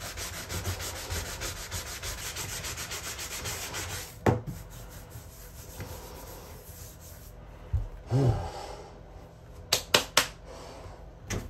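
Sanding sponge rubbed by hand over a putty patch on a fiberglass bathtub, in quick, even back-and-forth strokes for about four seconds. Then a knock, quieter rubbing, and a few sharp clicks near the end.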